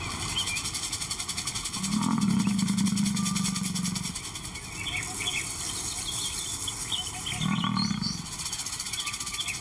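Male lion growling low twice: a long growl of about two seconds starting two seconds in, and a shorter one near the end. Behind it are a steady high hiss and short bird-like chirps.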